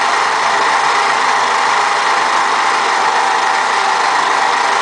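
Electric stand mixer running steadily at speed, beating whipped eggs as powdered milk and cornstarch are worked in: a loud, even motor whir with a constant whine.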